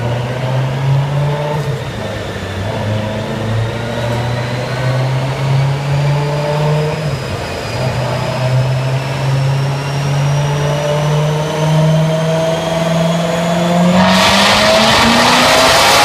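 2015 Corvette Z06's supercharged 6.2-litre V8 running on a chassis dyno, its pitch climbing slowly and steadily with engine speed, with a brief dip about halfway through. Near the end it suddenly turns much louder and harsher as the throttle is opened wide.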